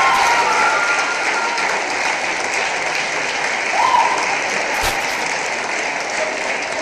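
Theatre audience applauding steadily at a curtain call, with one voice in the crowd calling out briefly about four seconds in.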